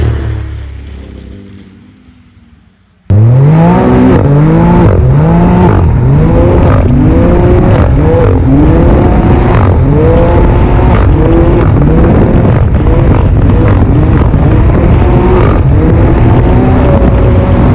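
Ski-Doo 900 ACE Turbo R turbocharged three-cylinder engine with a Straightline Performance trail muffler, dropping in pitch and fading away after passing by for about three seconds. Then it is heard loud from on board at speed, its pitch rising and falling over and over.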